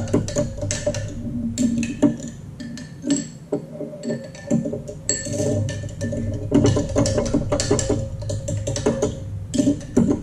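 A metal fork whisking beaten eggs in a glass cup, with rapid clinks and taps of the fork against the glass and a brief lull about four seconds in.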